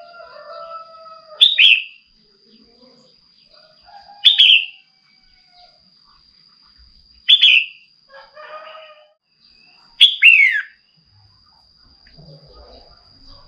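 Red-whiskered bulbul giving a short, sharp, falling call four times, about every three seconds, with quieter bird warbling in between. This is the female's call of the kind used to rouse male bulbuls.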